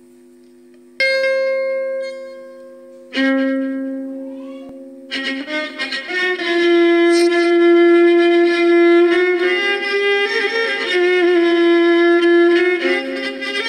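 An electric violin playing a slow melody. Two ringing notes die away, then from about five seconds in come long bowed notes with vibrato.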